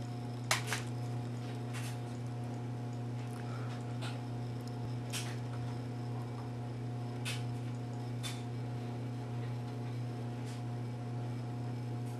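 Steady low electrical hum with a faint higher tone above it, and light clicks every second or two.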